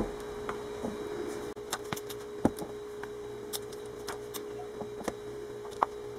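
Scattered light clicks and soft wet taps as raw marinated chicken drumsticks are lifted from a bowl and set down one at a time on a stainless wire-mesh air-fryer rack. A steady hum runs underneath.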